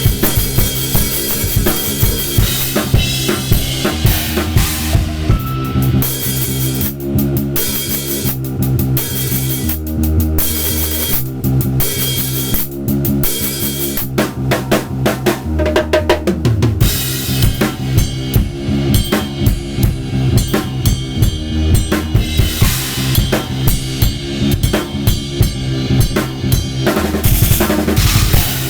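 Drum kit played in a busy improvised groove, with kick drum, snare and rimshots. It runs over a sampled backing track with a low bass line that changes note every second or two.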